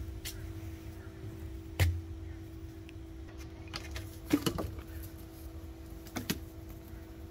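A steady low hum, with a few sharp knocks of footsteps on wooden steps about two seconds in, a cluster a little past the middle, and one more near the end.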